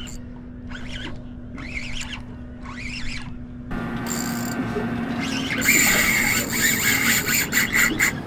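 Spinning reel being cranked against a hooked bluefish, its whir rising and falling about once a second over a low steady hum. About four seconds in the sound turns to a louder, rough buzzing with a steady whine running through it.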